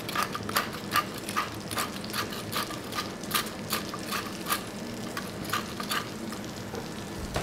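Hand-turned pepper mill grinding peppercorns over a frying pan: a quick run of crunching clicks, several a second, that stops about six seconds in, over the steady sizzle of meat frying in butter.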